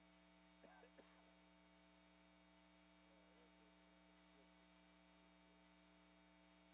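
Near silence: a faint steady electrical hum, with two faint ticks about a second in.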